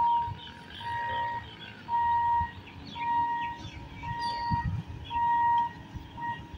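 Railway level crossing warning buzzer beeping one steady high tone, about half a second on and half a second off, roughly once a second.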